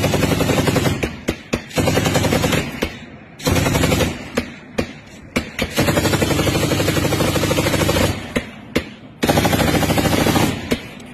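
Automatic gunfire in several long, rapid bursts with short gaps between them.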